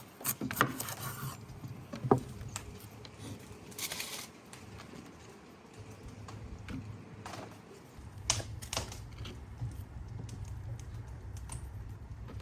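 Scattered light clicks and taps, with two short rustles near the start and about four seconds in, over a low steady hum.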